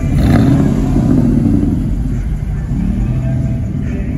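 Car engine running and revving, with a loud, low exhaust note that rises and falls in pitch.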